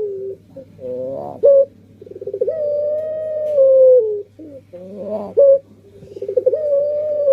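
Barbary dove (burung puter) cooing in the long drawn-out 'pelung' style: a short rising coo, then a long coo that begins with a quick stutter, holds and slides slowly down in pitch, the pair repeating about every four seconds.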